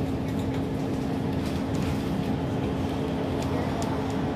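Steady engine drone and road noise heard from inside a moving road vehicle, with a constant low hum and a few faint rattling ticks.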